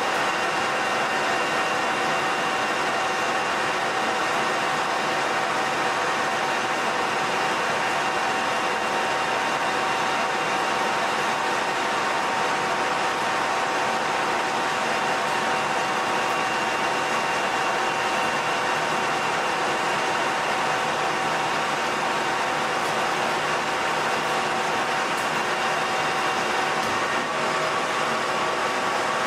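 Colchester Master 2500 geared-head centre lathe running while turning a bar, a steady whir with a constant gear whine; the tone changes slightly near the end.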